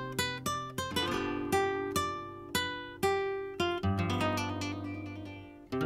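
Background music on plucked acoustic guitar: a run of picked notes and chords, each ringing and fading, several a second.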